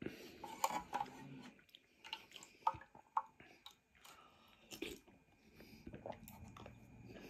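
A person chewing food close to the microphone. There are irregular wet mouth clicks and smacks.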